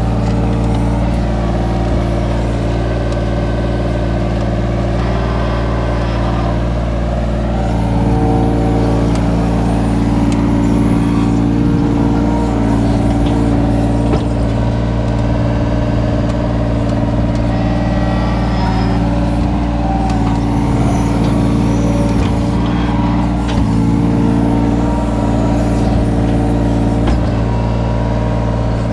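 Kobelco mini excavator's diesel engine running steadily while it digs, heard from the operator's seat. Its note shifts a little every few seconds as the boom and bucket work.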